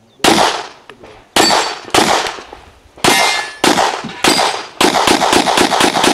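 About a dozen handgun shots in a practical shooting stage. At first they come roughly a second apart, then faster in a quick string near the end. Around the middle, one shot is followed by a ringing metallic clang.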